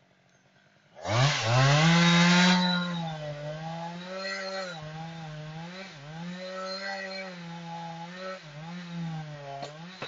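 Chainsaw starting up about a second in with a rising pitch, running loudly at high revs, then running on with its pitch wavering and dipping, and winding down with a falling pitch at the end.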